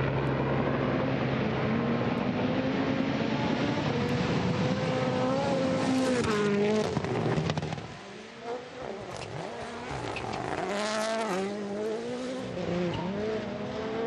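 Rally car engine at full throttle on gravel, pitch climbing steadily, then dropping in quick shifts about six to seven seconds in. After a short drop in loudness, a Toyota GR Yaris Rally1 car's turbocharged engine revs up and down repeatedly as it brakes and accelerates through the bends.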